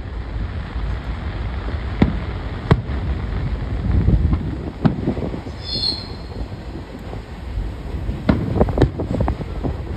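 Aerial fireworks shells bursting with sharp bangs over a steady low rumble: a few single bangs spaced a second or two apart, then a quick cluster near the end.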